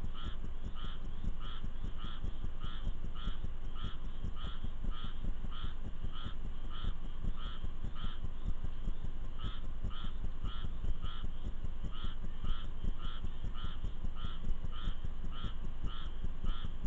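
A frog calling over and over in a steady rhythm, about two to three short raspy calls a second, over the constant patter and hiss of heavy rain.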